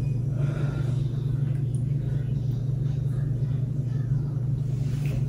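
Steady low machine hum, even in level, with no other clear sound over it.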